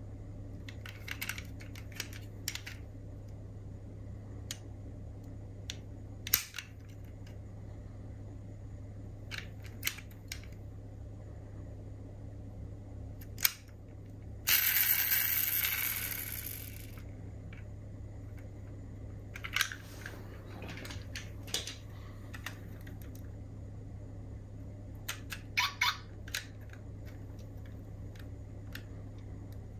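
Scattered small clicks and taps of diecast model cars being handled, over a steady low hum. About halfway through comes a louder rushing noise, about two and a half seconds long, that fades out.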